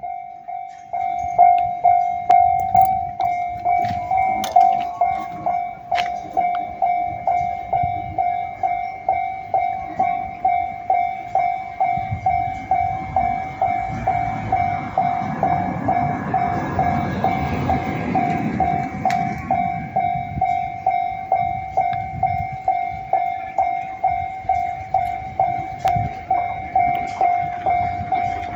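Japanese railway level-crossing warning bell ringing in a steady single tone, about two strokes a second, starting about a second in. Midway the rumble of a train passing over the crossing rises and fades under the bell.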